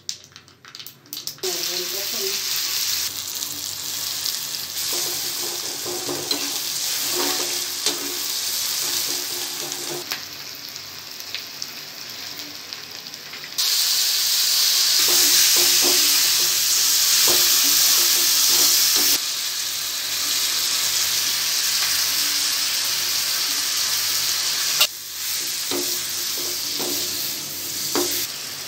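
Hot oil sizzling in a kadai, first with whole spices frying, then louder about halfway through as raw chicken pieces go into the oil. A steel ladle stirs them through the pan.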